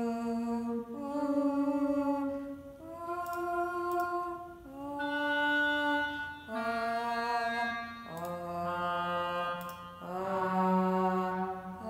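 Sampled MIDI instrument sounding a slow line of long held notes, each steady in pitch and changing about every two seconds. A girl's singing into a microphone drives it, converted live into MIDI, so an instrument's tone is heard in place of her voice.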